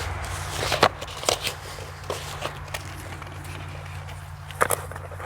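Scattered clicks and crinkles of a small parts package being handled and pried at while someone tries to open it, over a steady low hum.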